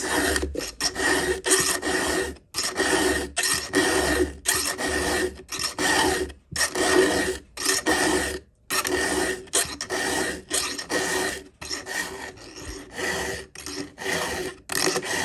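Round chainsaw file, getting worn, rasping back and forth across a ragged cutter tooth of a saw chain in repeated strokes, about two a second, with a few brief pauses.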